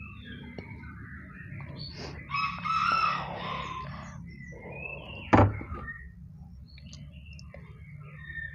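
A rooster crowing once, a call of about a second beginning a little over two seconds in, with small birds chirping on and off. A single sharp knock about five seconds in.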